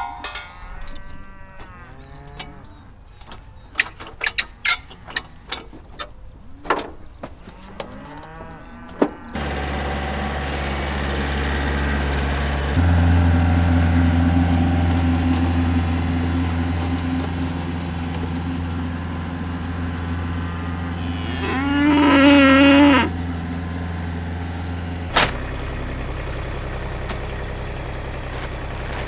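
Cattle mooing, with one loud, long, wavering moo near the end. Before it come scattered clicks and knocks with fainter calls. From about a third of the way in, a steady low hum runs under the mooing and stops a few seconds before the end.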